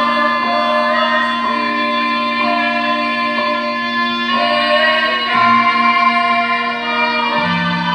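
Live music accompanying a dance drama: sustained melodic notes over a steady low drone, growing fuller about four seconds in.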